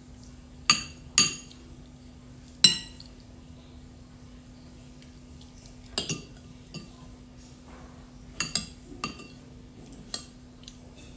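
Cutlery clinking and scraping against a plate while eating, in about ten scattered, irregular strikes, the loudest in the first three seconds. A steady faint hum runs underneath.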